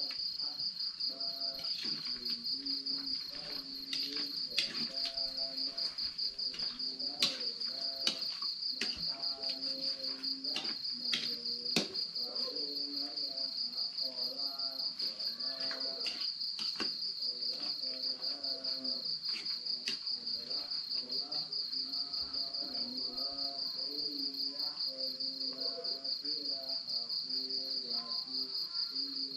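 Crickets chirping in a steady, fast-pulsing trill. Under it a voice chants at a distance, and a few sharp clicks fall in the first half.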